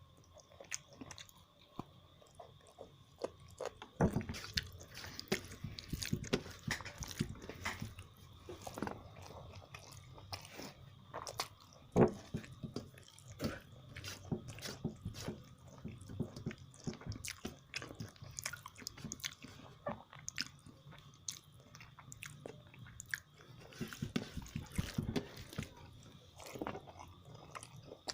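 Close-miked chewing and biting, with wet mouth sounds and irregular clicks. One sharp, louder click comes about twelve seconds in.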